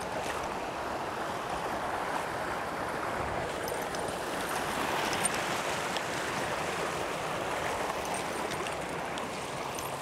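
Mountain stream running steadily over rocks, the water rushing through a small riffle and cascade.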